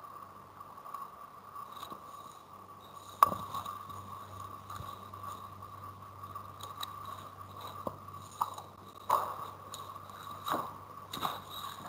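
A steady faint whine and a low hum, broken by scattered sharp clicks and knocks. The loudest click comes about three seconds in, and a cluster of them falls near the end.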